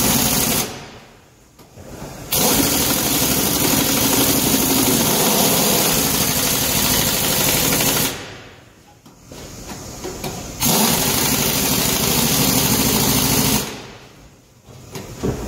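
Impact wrench hammering on the lug nuts of a truck trailer's dual wheel. It runs in long bursts of a few seconds, stopping twice for a second or two.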